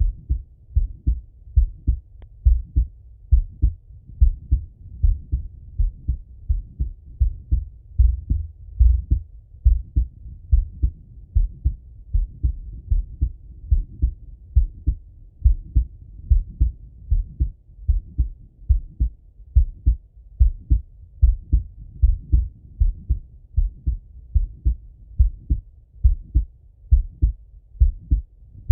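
A man's slow heartbeat heard through a Littmann stethoscope: regular pairs of low, muffled thumps (lub-dub), with a soft rush of breathing underneath that swells and fades.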